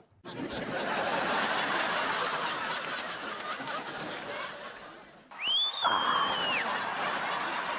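Sitcom laugh track: a crowd of recorded audience laughter that swells in right away and fades over about five seconds. Then a fresh burst of laughter comes in, with a high whistle-like tone that rises, holds and falls away over about a second.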